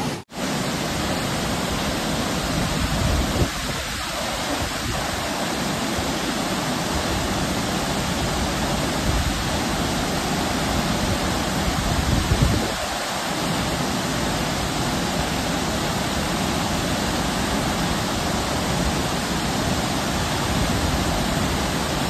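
Burney Falls, a 129-foot waterfall, heard close up from its plunge pool: a steady, dense rush of falling water and spray. A couple of brief low rumbles rise above it a few seconds in and again about halfway.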